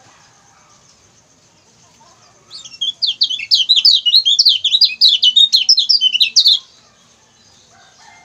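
Kecial kuning, a yellow Indonesian white-eye, giving a fast run of short, high 'ciak ciak' chirps. The chirping starts about two and a half seconds in and stops abruptly about four seconds later.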